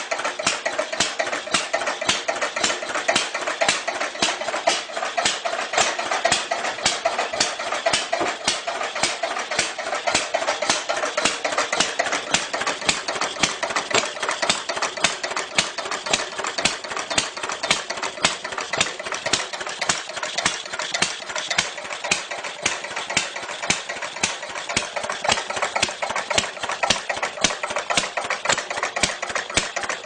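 Clunky old engine idling, with a rapid, even clatter of knocks running steadily through it.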